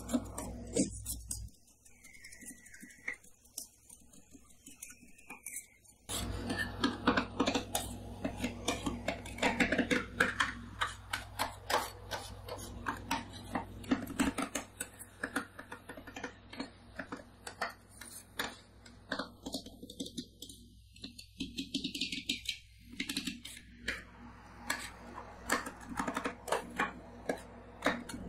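Two metal spatula scrapers chopping and mashing cream and crushed wafer cookies on a steel ice-cream cold plate. They make rapid, uneven metal taps and scrapes, quieter for a few seconds near the start.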